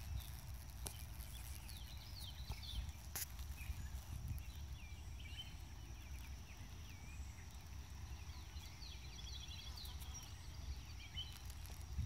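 Faint birds chirping at intervals over a steady low rumble of wind or handling noise on the microphone, with a sharp click about three seconds in.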